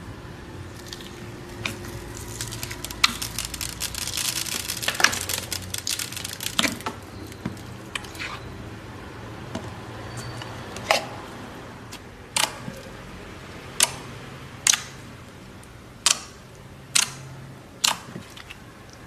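Slime being handled and squished by hand: a dense crackling from about three to seven seconds in, then a string of separate sharp pops, seven in the last eight seconds.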